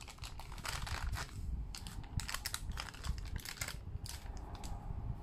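Parchment paper crinkling and rustling in quick irregular crackles as it is peeled open from the sides of a baked loaf cake.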